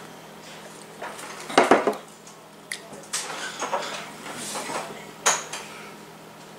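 Plastic tumbler set down on a table with a clatter about a second and a half in, followed by several lighter knocks and clicks.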